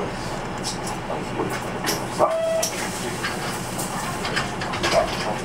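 Inside a Nissan Diesel Space Runner RA city bus standing still with its diesel engine idling: a steady low engine hum with scattered rattles and clicks from the body, and one short beep about two seconds in.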